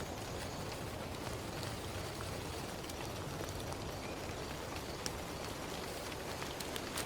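Steady rain, with scattered sharper ticks of single drops striking a surface.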